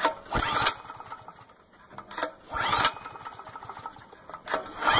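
Recoil starter of a DuroStar DS4000S generator's 7 hp air-cooled overhead-valve engine pulled three times, about every two seconds, each pull a brief rising whir as the engine cranks. The engine is on full choke and does not start.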